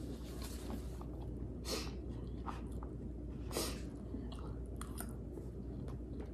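Close-miked chewing of a mouthful of shrimp and broccoli, with a few short clicks of a metal fork against a plastic take-out bowl, the clearest about a second and a half in and again past three and a half seconds.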